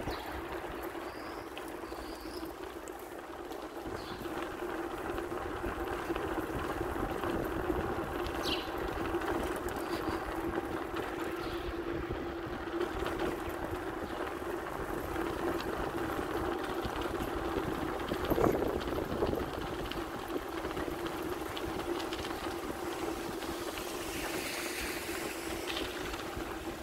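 A steady droning hum over an uneven low rumble, swelling briefly about eighteen seconds in.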